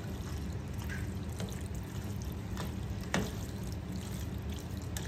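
Wooden spatula stirring a thick mix of shell macaroni, ground beef and tomato sauce in a large skillet: wet stirring with scattered light clicks against the pan, the sharpest about three seconds in, over a steady low hum.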